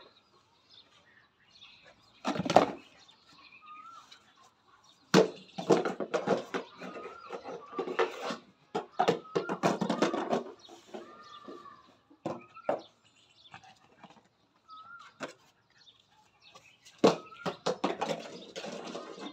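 Beagle puppy playing on a concrete floor: irregular clicks and scuffling in bursts, with a few short high chirps now and then.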